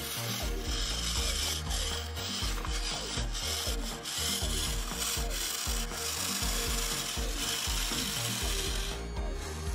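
A homemade remote-control model tractor's small electric gear motor and gearbox grinding and whirring under load as it climbs a sand pile, with uneven low thumps throughout.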